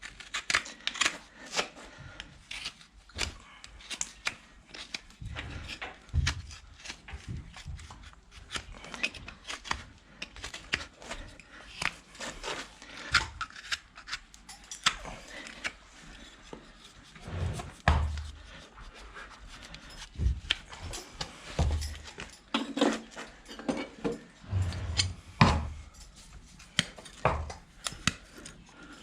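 Hoof-trimming tools cutting and scraping a horse's hoof: irregular sharp clicks and scrapes, several a second, with a few dull thumps in between.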